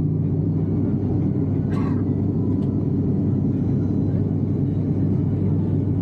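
Steady cabin drone of a turboprop airliner's engines and propellers in cruise, a deep even rumble heard from a window seat. A brief click about two seconds in.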